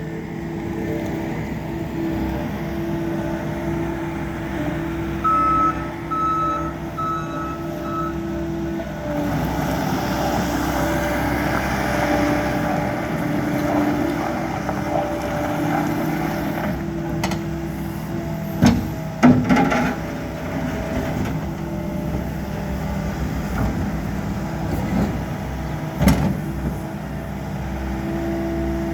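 John Deere 318G skid steer's diesel engine running, with its backup alarm beeping four times about five seconds in. The engine note grows fuller about nine seconds in, and a few sharp metallic knocks come later on, around eighteen to twenty seconds in and again near twenty-six.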